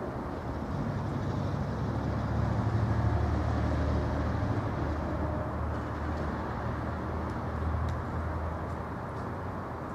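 A motor vehicle engine running steadily, a low rumble that swells for a few seconds and then slowly eases off.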